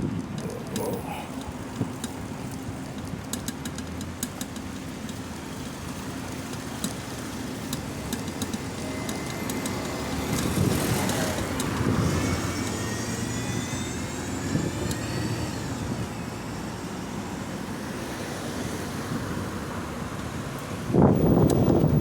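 Road traffic: a steady background of traffic noise, with a vehicle passing and swelling louder about ten to twelve seconds in, then fading. A louder low rush starts abruptly near the end.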